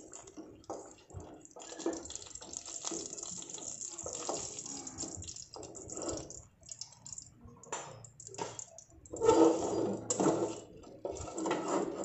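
Small tangra catfish frying in hot oil in a kadai, sizzling in uneven bursts while a wooden spatula scrapes and turns them against the pan. The sizzle is loudest a few seconds before the end.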